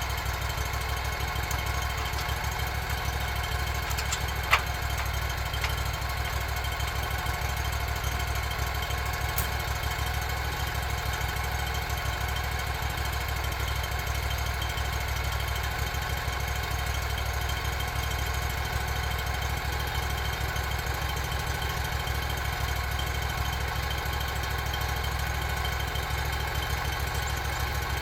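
Wood-Mizer portable sawmill's engine running steadily at an even speed, with one sharp click about four and a half seconds in.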